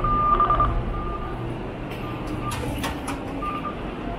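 Metro fare-gate card readers beeping: a high electronic beep that breaks into a quick run of pulses about half a second in, with fainter beeps from neighbouring gates later on. A few sharp clacks from the turnstiles, and a steady station hum underneath.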